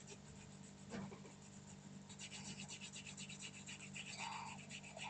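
Coloured pencil being rubbed quickly back and forth on cardboard, making faint scratchy strokes. There is a short knock about a second in.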